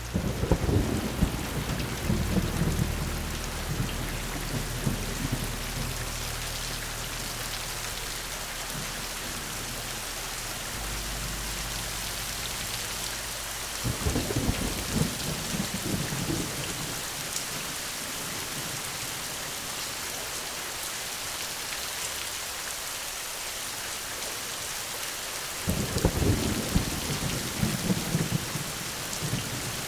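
Steady rain pouring, with rolls of thunder rumbling three times: at the start, about halfway through, and near the end.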